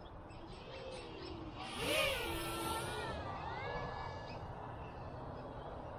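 Motors and propellers of a 4-inch FPV quadcopter in flight, their whine rising and falling in pitch with the throttle, swelling loudest about two seconds in.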